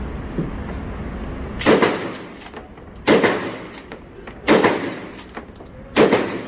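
Four gunshots, evenly spaced about a second and a half apart, each followed by a short echo. A steady low rumble runs underneath before the first shot.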